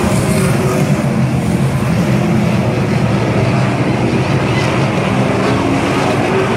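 A pack of IMCA stock cars racing on a dirt oval, their V8 engines running at racing speed in a loud, steady, blended drone.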